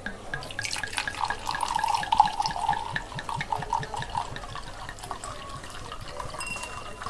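Red wine being poured into a wine glass, glugging and splashing, heaviest in the first few seconds and then thinning to a lighter trickle.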